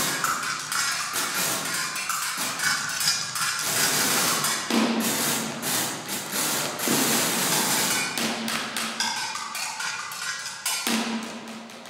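Improvised percussion on found objects: a dense, irregular run of taps, clicks and knocks, amplified through live electronics, with a low hum that comes and goes.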